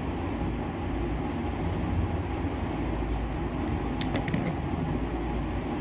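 Steady background noise: a low rumble with an even hiss. A few faint light clicks come about four seconds in.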